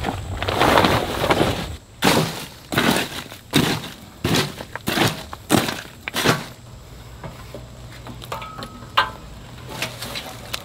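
Rustling and crunching of a tarp being pulled off a log splitter and dry bark and debris being scraped out from under it by hand. After the first couple of seconds it comes as a run of short crunches, then eases off to a few small clicks over a low steady hum.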